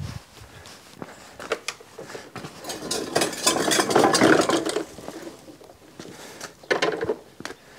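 Toro eFlex reel mower being pushed over cobblestones, its metal reel, frame and groomer unit rattling and clattering, loudest through the middle. A few sharper knocks near the end as it rolls onto a rubber mat.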